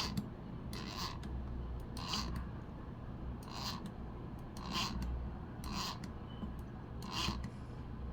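Spring motor of an Elmo Cine 8A 8mm movie camera being wound with its winding key: a ratcheting rasp with each turn, about once a second, repeated steadily.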